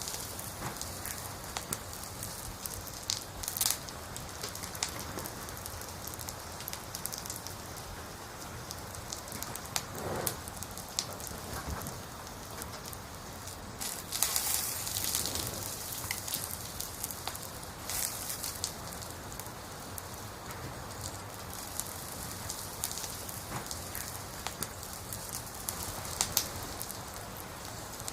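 Wood fire burning: steady crackling with frequent sharp pops from the burning logs, and a brief louder hiss and flare of pops about halfway through.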